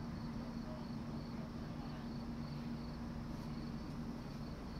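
Crickets chirping steadily, a few evenly spaced chirps a second, over a steady low hum.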